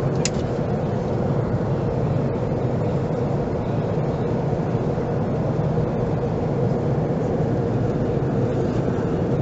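Steady in-flight cabin drone of an Airbus A330-300, the noise of its engines and of air rushing past the fuselage, with a steady hum in the low and middle register. A single short click comes right at the start.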